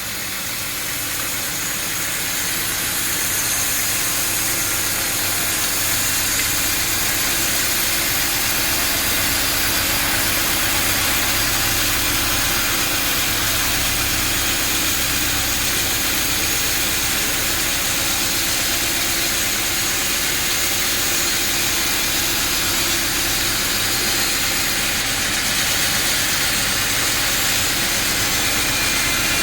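Sawmill machinery running steadily. It builds a little over the first few seconds, then holds a constant level.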